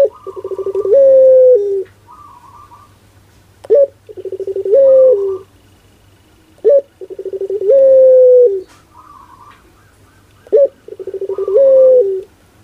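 Puter pelung, a Barbary (ringneck) dove, cooing four times about every three seconds. Each call is a short sharp note, then a fast stuttering run and a long held note that drops at the end. Fainter, higher short calls come between them.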